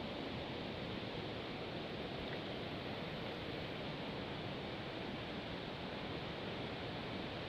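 Steady rushing noise, even and unbroken, with no distinct sounds standing out.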